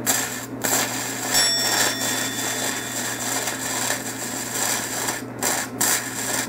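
Flux-cored wire arc of a lithium-battery gasless semi-automatic welder crackling as it welds 3 mm steel plate at the maker's recommended 17 V, 50 A. At this setting the current is too weak. The crackle starts about half a second in and stops near the end.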